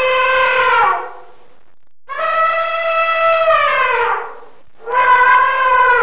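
Elephant trumpeting: repeated calls, each held on a steady pitch and sliding down as it fades out. One call ends about a second in, a second runs from about two to four seconds, and a third starts near the end.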